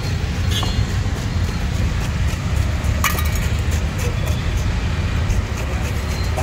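Steady low rumble of road traffic, with a single sharp metallic clink about three seconds in as a tin can of baby corn is handled on the counter.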